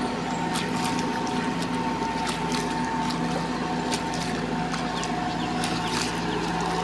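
Combine harvester's diesel engine running steadily, a constant drone with several steady tones, with scattered clicks and rattles from the machine.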